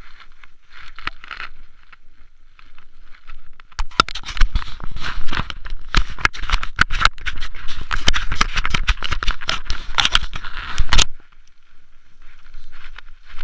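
Mountain bike riding over rough ground, heard through a body-mounted action camera: a dense clatter of knocks, scraping and crackle as the camera and bike rattle. It grows loud about four seconds in and drops back to light crackle near eleven seconds.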